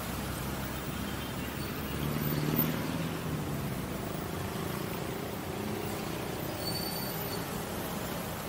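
Road traffic: motor vehicle engines running close by, with one engine growing louder about two seconds in.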